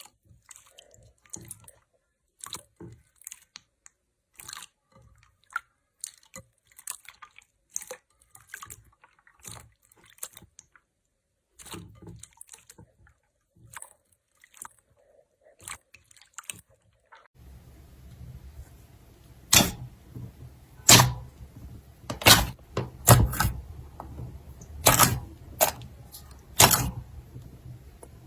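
Slime being squeezed and poked, giving small sticky crackles and clicks. About 17 seconds in the sound changes to another slime clip over a low hum, with louder, sharper pops about once a second.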